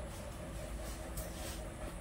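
A dog eating biscuits off a concrete floor: a few faint crisp crunches over a steady low background rumble.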